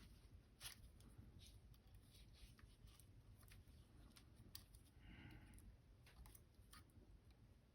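Faint, sparse clicks and taps of small metal tools working on the tiny parts of a Canon A-1 film camera's power-switch assembly.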